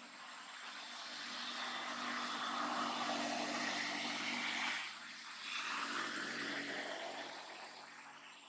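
A passing engine: a steady motor hum that grows louder over the first few seconds, dips briefly about five seconds in, swells again and fades away near the end.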